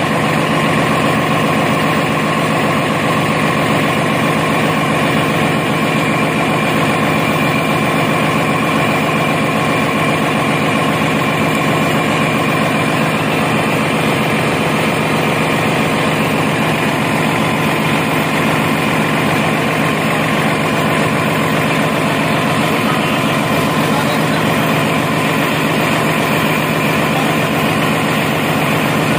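Yanmar diesel generator engine running steadily, a loud, even engine sound that holds without change.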